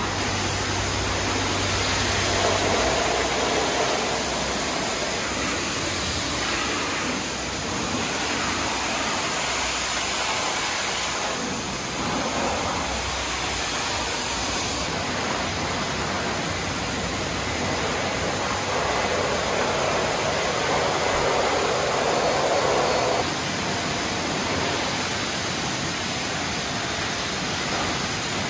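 High-pressure water jet from a self-service car wash lance spraying a car, a steady rushing hiss. A low hum underneath stops two or three seconds in.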